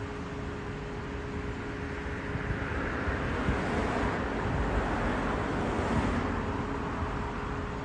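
A road vehicle driving past: its engine and tyre noise swells from about two seconds in and fades near the end, over a steady hum.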